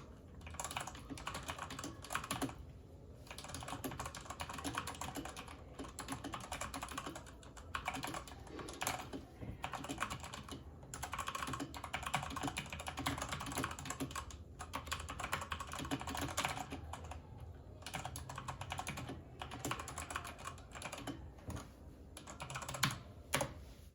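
Typing on a Redragon Kumara K552 mechanical keyboard with tactile Outemu Brown switches: a fast, continuous run of keystroke clacks, broken by a few short pauses.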